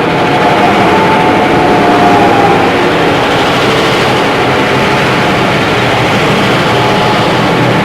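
Train sound effect from an old film sound library: a loud, steady running noise of a train, with a faint thin tone over it in the first two or three seconds.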